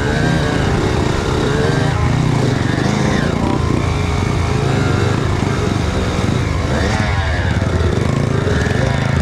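Kawasaki KX85 two-stroke dirt bike engine revving up and down repeatedly as it is ridden through mud, the pitch rising and falling several times.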